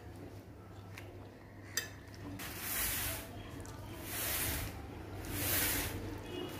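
Close-up sounds of eating rice and curry by hand from a glass plate. There is a sharp clink about two seconds in, then three hissing swells, each under a second long.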